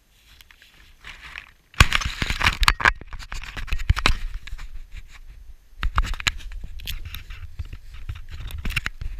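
Handling noise on a crashed FPV racing quadcopter's on-board GoPro: grass rustling and hands scraping and knocking on the camera and carbon frame as the quad is picked up and carried, with its motors stopped. The loudest handling starts about two seconds in, with another burst about six seconds in.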